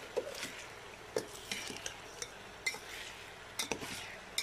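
A slotted steel spoon scraping and clinking irregularly against a stainless steel pot as diced potatoes frying in oil are stirred, with a faint sizzle beneath.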